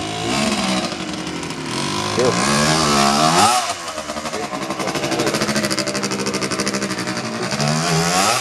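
A small engine running and revving: its pitch climbs and falls away about three seconds in, runs fairly steadily, then rises again near the end.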